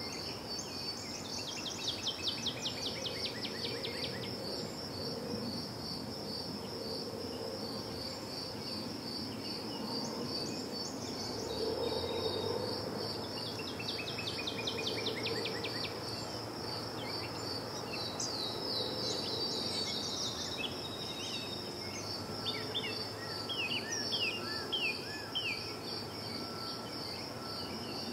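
Crickets chirping in a steady, even, high pulse. Songbirds sing quick runs of falling notes several times over it, with a low hum of road traffic that swells briefly around the middle.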